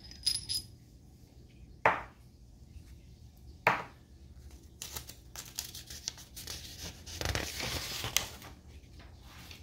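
A few sharp knocks from handling small metal kit parts on a desk, then sheets of printed paper rustling and sliding for about three seconds as a page of instructions is turned.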